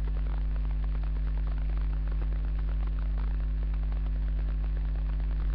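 A steady low electrical hum, the mains hum of the recording setup, with faint crackle over it and no other distinct sound.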